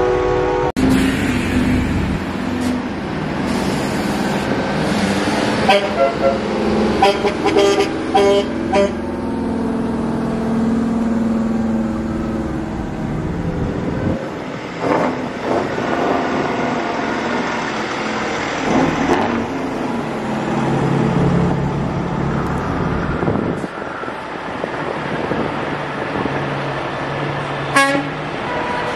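Semi trucks rolling past with their diesel engines running, and truck horns sounding: a held blast that cuts off under a second in, a cluster of short toots from about six to nine seconds in, and a few brief honks later.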